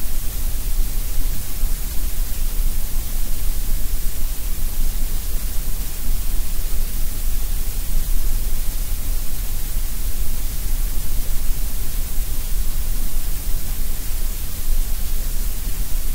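Steady synthetic coloured noise of the kind played for sleep: an even, unchanging hiss with a deep rumble beneath it.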